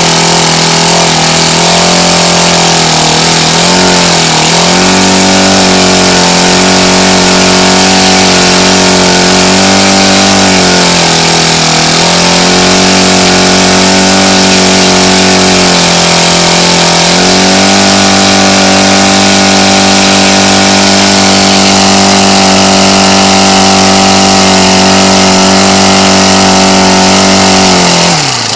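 Ryobi 29cc four-stroke single-cylinder trimmer engine running fast on a test stand. Its pitch dips briefly three times as the throttle is eased, then holds steady, and near the end it falls sharply as the throttle is closed to idle. It is running on the stock carburetor, which has no adjustments and which the owner says leaves it running a bit lean.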